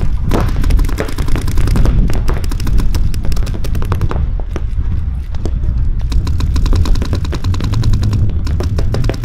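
Paintball markers firing rapid, overlapping strings of shots during a match, with a steady low rumble underneath.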